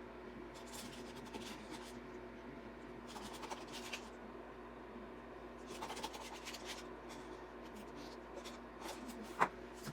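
Intermittent scraping and rubbing strokes from hand tools working epoxy resin, in short bursts over a steady low hum, with one sharp click near the end.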